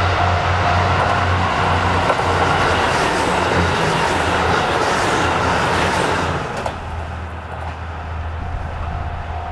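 A KiHa 85 diesel 'Wide View Nanki' limited express train passing at speed, with loud rushing wheel and engine noise. About six seconds in, the noise drops off as the train moves away, leaving a low steady drone.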